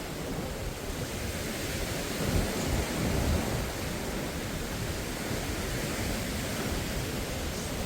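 Sea surf washing ashore in a steady rush, with wind rumbling unevenly on the microphone.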